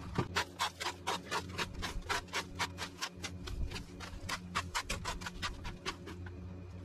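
Garden rake scraping over bare soil and leaf litter in quick, even strokes, about five a second, stopping about a second before the end.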